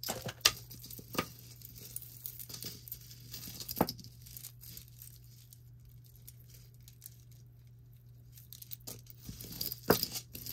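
Jewelry being handled by hand: scattered light clinks and taps of metal pieces and chains, with sharper taps about half a second, one second and four seconds in and again near the end, and a quieter stretch in between.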